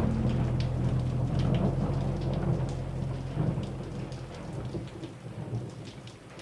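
Rain falling with scattered drops and a low roll of thunder that slowly fades away.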